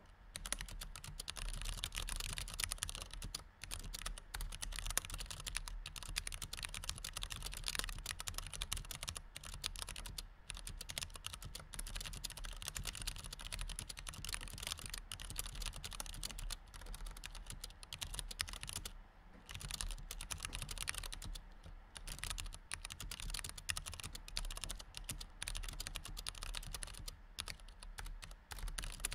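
Continuous typing on a white low-profile computer keyboard: a dense, irregular stream of key clicks, broken by a short pause about two-thirds of the way through.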